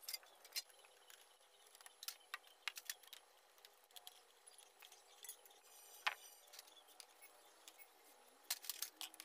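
Faint, scattered clicks and clinks of hand tools on motorcycle metal, with one sharper click about six seconds in and a quick cluster of clicks near the end.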